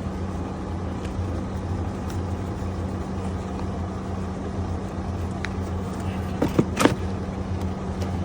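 An engine running steadily in the background with an even drone. A few sharp knocks come close together about six and a half seconds in.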